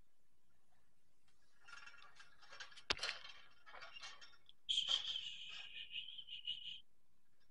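Wire pet cage rattling and clinking as the cat shifts inside it: a scatter of light rattles with one sharp metallic tick about three seconds in, then a louder, pulsing jangle for about two seconds near the end.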